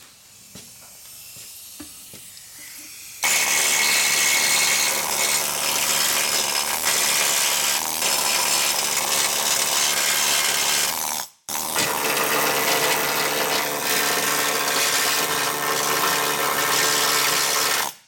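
Needle scaler hammering against the underside of a car's floor pan in the transmission tunnel, knocking off grime that pressure washing left behind. A loud, continuous noise starts about three seconds in, breaks off for a moment about two-thirds of the way through, then runs on until it stops abruptly.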